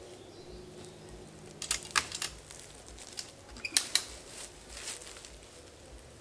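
Ratchet strap being cranked tight under load, its ratchet mechanism clicking in a few short groups of sharp clicks about two, four and five seconds in.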